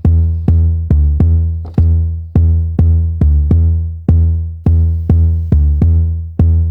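Electronic background music: a deep synth bass line with sharp, punchy notes at about two a second, each fading away before the next.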